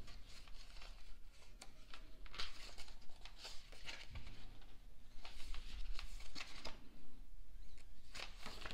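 Photobook pages of a CD album being turned and handled by hand, paper rustling and sliding every second or so.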